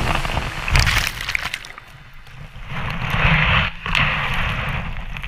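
Small sea waves breaking and washing over a camera at the waterline: water sloshing and rushing, with surges about a second in and again around three seconds in.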